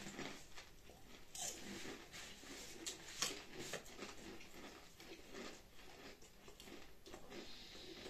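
Potato chips being bitten and chewed: faint, irregular crunches and crackles.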